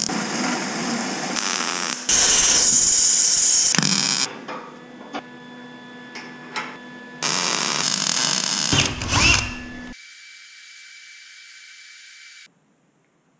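Metal-shop power tools at work in a run of short clips joined by abrupt cuts: loud noisy stretches, a quieter stretch with clicks and steady tones, a brief rising-then-falling whine, then a steady hum that cuts off suddenly near the end.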